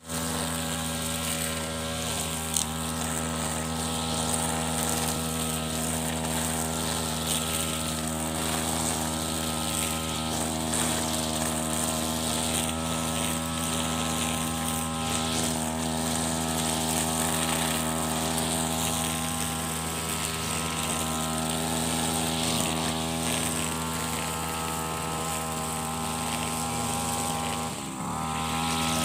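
Brush cutter engine with a nylon trimmer line running steadily at cutting speed through short grass. Near the end its pitch dips briefly and then picks back up.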